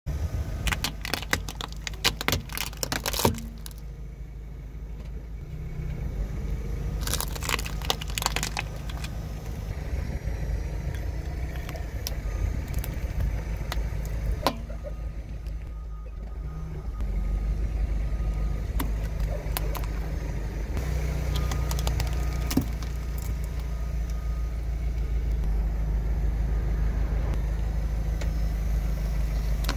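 Car tyre rolling slowly over small plastic toys and crushing them, with clusters of sharp plastic cracks and snaps in the first few seconds and again around seven to eight seconds, and single cracks later. Under them is the steady low rumble of the car's engine.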